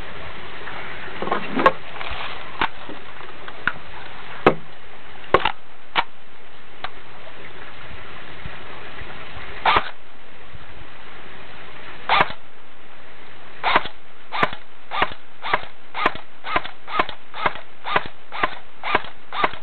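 JG M4 airsoft electric gun firing single shots: a few spaced shots at first, then a steady string of about two shots a second in the last six seconds.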